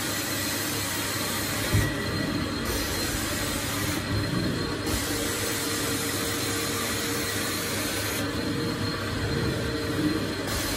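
Carpet extraction machine's vacuum motors running steadily with a thin high whine, as the cleaning wand is drawn across wet carpet. A hiss over the top drops out briefly every few seconds.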